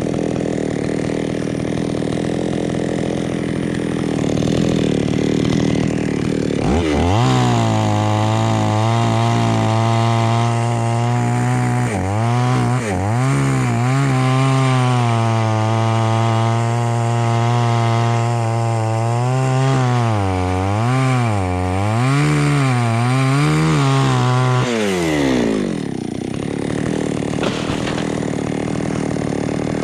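Two-stroke chainsaw running at idle, then revved up about seven seconds in and held at full speed while cutting through jackfruit wood. Its pitch dips and recovers several times as the chain bites, then it drops back to idle near the end.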